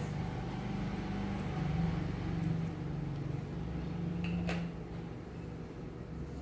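Steady low mechanical hum, easing off a little about two-thirds of the way through, with a single light click about four and a half seconds in.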